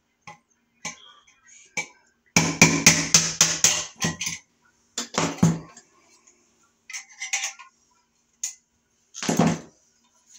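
Punching out a knockout in a steel electrical box: a quick run of sharp metallic knocks, then a few separate clinks as the slug is worked loose with pliers.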